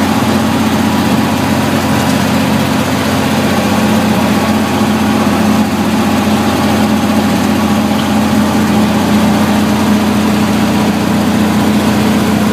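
1942 Mack truck's engine running steadily at about 45 mph, heard from inside the cab along with road noise, a constant low drone.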